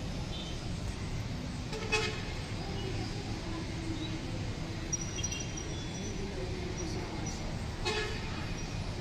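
Steady rumble of road traffic, with two short vehicle-horn toots, one about two seconds in and one near the end.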